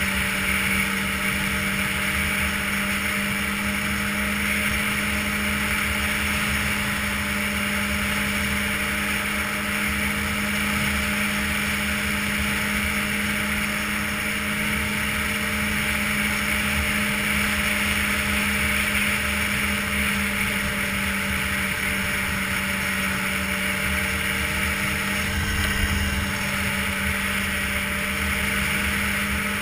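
Ski-Doo touring snowmobile running at a steady cruising speed, heard from the rider's seat: a constant engine drone over the hiss of track and wind. There is a brief low rumble near the end.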